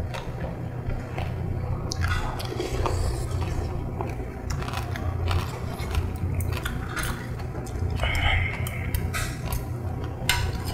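Close-up eating sounds: chewing and biting, with repeated sharp clicks and scrapes of metal spoons and chopsticks against bowls and dishes, over a steady low hum.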